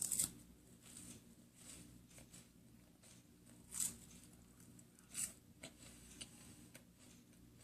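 Crisp wafer biscuit with strawberry cream filling being bitten and chewed: a few short crunches at irregular times, the clearest about four and five seconds in.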